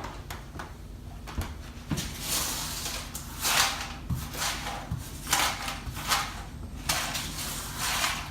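A series of rustling, scraping swishes, about one every second, with a few light knocks between them.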